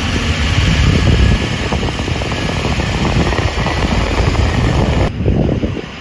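Pickup truck driving at road speed, with wind rushing over a microphone held outside the cab mixed with engine and tyre noise. The sound cuts off abruptly about five seconds in.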